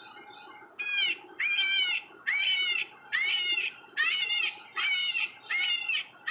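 An animal calling in a steady series of harsh, nasal calls, about seven of them, one every second or so, starting about a second in, with faint quick chatter before them.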